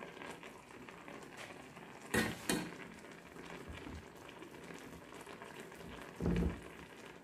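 Beef, green beans and red bell pepper simmering in sauce in a stainless steel pan, bubbling and sizzling steadily. A spatula knocks against the pan twice about two seconds in, and a short low thump comes near the end.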